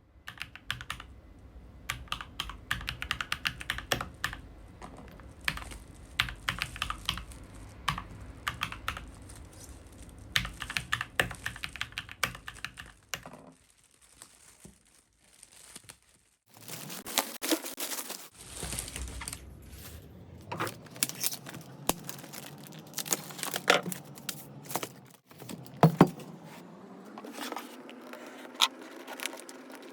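Keychron K2 V2 mechanical keyboard with Gateron Red switches being typed on: irregular key clicks, with a pause partway through.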